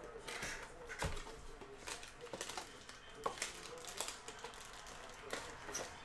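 Trading cards and packs being handled on a table: irregular rustling and light clicks and taps as cards are slid and set down, with a soft knock about a second in.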